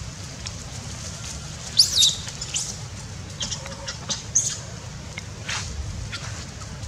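Baby macaque squealing: one sharp, high squeal that rises and falls about two seconds in, then a string of short high squeaks, over a steady low rumble.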